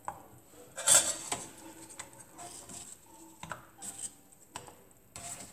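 Kitchen handling noises: a sharp clatter about a second in, then scattered lighter clicks and knocks, from metal tongs and a stainless steel pot and from crisp fried cartellate pastries being picked off a tray and set into fig syrup.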